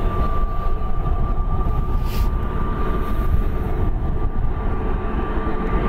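Airbus A321neo's Pratt & Whitney PW1100G geared turbofan engines running at taxi power. They give a steady high whine over a low rumble.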